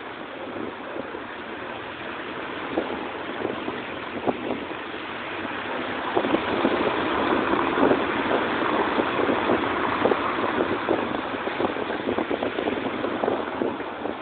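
Car driving, heard from a phone held out of its window: a rough, crackling rush of road and wind noise that grows louder about six seconds in.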